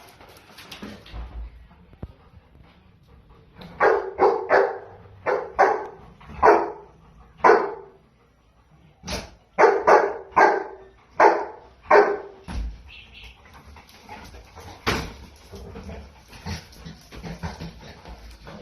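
Dog barking in two runs of short, sharp barks, about a dozen in all, with a pause of a second or so between the runs, then one more bark a few seconds later.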